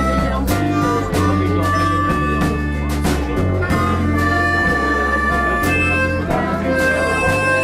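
Three harmonicas playing together live: held melody notes over a low bass line and chords.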